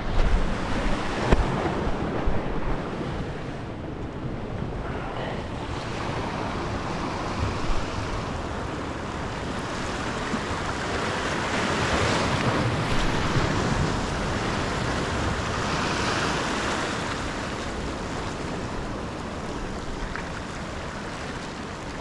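Pacific Ocean surf breaking and washing up the beach in a steady rush that swells louder twice, about halfway through and again a few seconds later. Wind rumbles on the microphone underneath.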